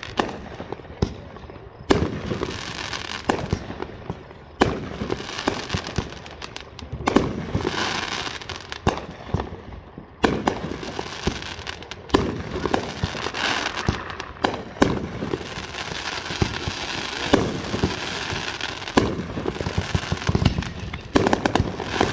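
Aerial fireworks going off overhead: sharp bangs every second or two, with crackling between them.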